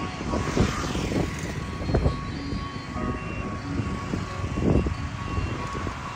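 Outdoor background noise: a steady low rumble with a faint steady tone, swelling louder a few times (about half a second, two seconds and nearly five seconds in).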